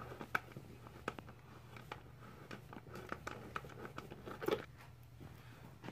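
Scattered light clicks and taps of a wrench and hands working a bolt loose on an ATV airbox, with a somewhat louder knock about four and a half seconds in. A steady low hum runs underneath.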